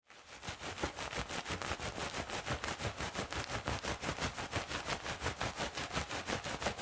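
Water running from a kitchen sink tap during hair washing, a steady rush with a fast, even pulsing of about eight beats a second.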